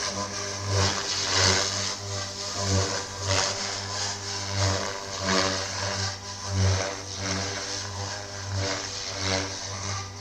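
Goblin 420 electric radio-controlled helicopter in flight, its rotor and motor sound swelling and fading repeatedly.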